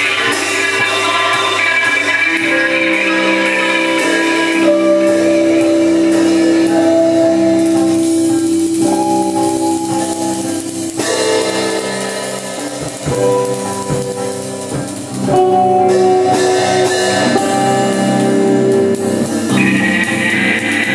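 Live experimental ensemble music: amplified electric guitars and electric violin holding long sustained tones that step to new pitches every second or two, over a drum kit. The music thins out with a few low drum thumps about twelve seconds in, then swells back to full level a few seconds later.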